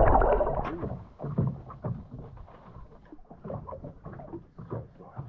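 Underwater rush of water and bubbles with the camera held just below the surface, fading out about a second in. Faint scattered clicks and knocks follow.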